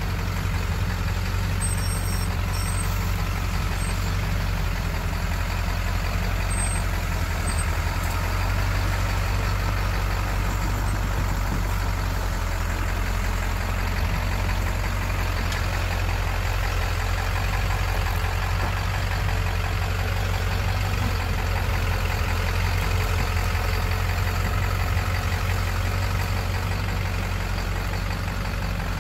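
Truck engine running steadily with a deep, even drone that does not rise or fall.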